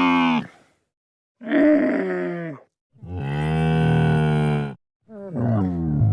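Sci-fi creature vocal effects: a run of low, drawn-out moaning growls, each one to two seconds long, several sliding down in pitch, with short gaps between them.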